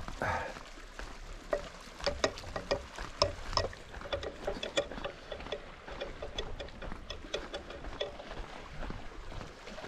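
Footsteps on a gritty concrete path: a run of irregular light clicks and scuffs, several a second, over a faint steady outdoor background.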